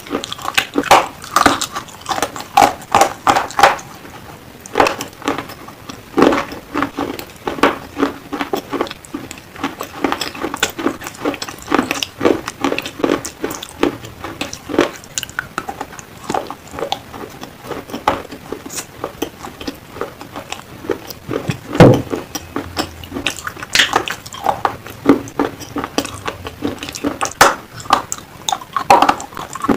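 Black slate pencil being bitten and chewed, a dense run of sharp, irregular crunches.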